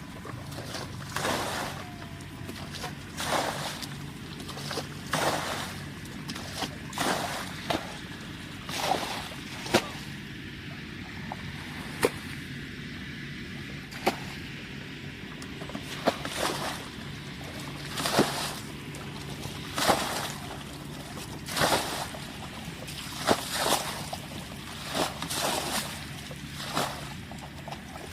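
Water splashing and sloshing again and again, every second or two, over a steady low hum, with a few sharp clicks in the middle.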